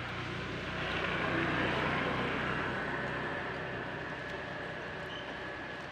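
A motor vehicle passing by: a steady engine-and-road noise that grows louder about a second in and slowly fades away.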